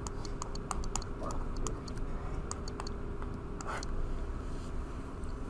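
Pen stylus tapping and scraping on a touchscreen while handwriting, heard as a run of quick, irregular light clicks that thin out after about three seconds.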